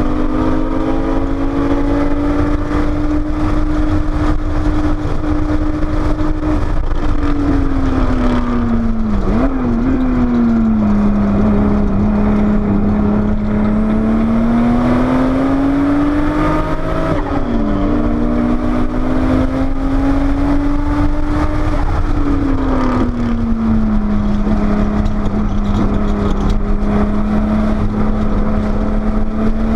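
Porsche 930 Turbo's air-cooled turbocharged flat-six at speed on a race track, heard from inside the car. The engine note climbs slowly under power, then drops off three times as the car slows for corners, with a quick rev blip at two of the drops. A steady rush of wind and road noise runs underneath.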